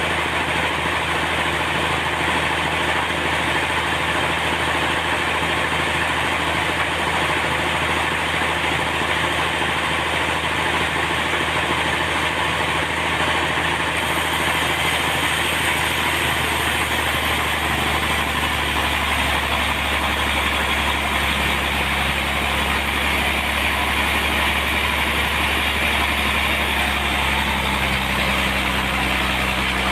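Sawmill machinery running steadily, a constant engine-like drone with hiss. About eighteen seconds in, a deeper low hum comes in.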